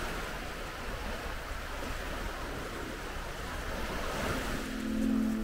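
Steady rushing of sea surf and wind. A low held musical note fades in near the end.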